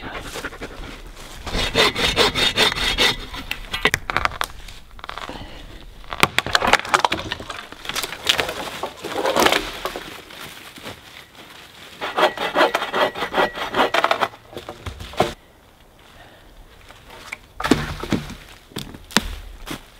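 Hand saw cutting through a wooden pole, in about four runs of quick strokes with short pauses between.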